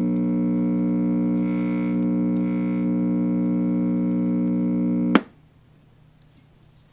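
A steady, loud electrical hum from a 1956 RCA Victor four-speed record player's amplifier and speaker, the fault the set needs worked on. It cuts off with a click about five seconds in as the player is switched off.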